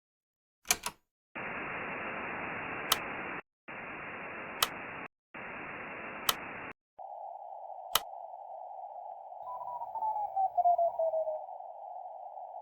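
Radio receiver static: a few clicks, then three bursts of hiss broken by short gaps and clicks. The hiss then turns to a narrower, filtered band in which a whistling tone glides down in pitch as the receiver is tuned across a signal.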